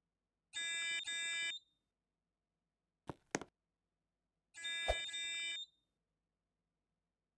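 Building fire alarm sounding in short blasts: two back-to-back buzzy tones, a pair of sharp clicks about three seconds in, then two more tones.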